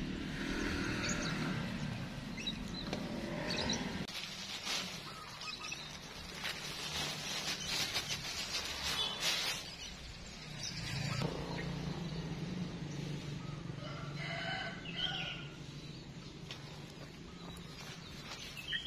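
A rooster crowing and chickens clucking, with a few light clicks in between.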